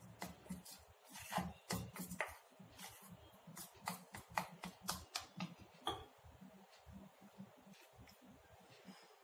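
Spoon stirring thick besan (gram-flour) batter in a stainless steel bowl: faint, irregular clicks and scrapes of the spoon against the bowl, a few a second, with soft thumps.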